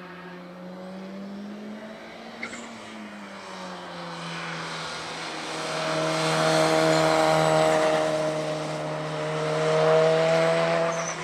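Mitsubishi Lancer Evolution's turbocharged four-cylinder engine running under load through a slalom, with a fairly steady note that swells louder about halfway through and again near the end, over the hiss of tyres on a wet track.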